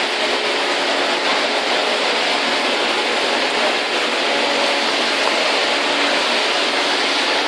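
Busy city street ambience: a steady, dense wash of traffic and crowd noise with no single event standing out.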